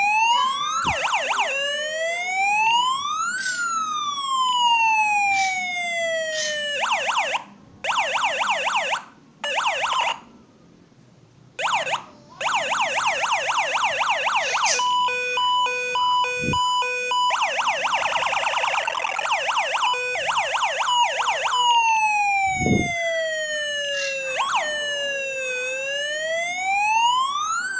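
Toy siren sound chip driving a small speaker, switched between its siren sounds by touching a wire to its pins. A slow rising-and-falling wail gives way to fast yelps and warbles with a rapid beeping pattern in the middle, and the sound cuts out briefly several times as the wire is moved. The slow wail returns near the end.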